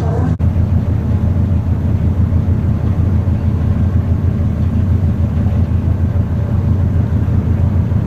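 Steady low drone of a sightseeing boat's engines running under way.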